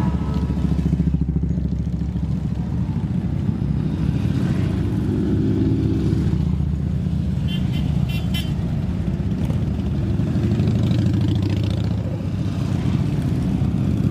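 A column of Harley-Davidson V-twin motorcycles rumbling past one after another at low speed. A horn beeps several times in quick succession about eight seconds in.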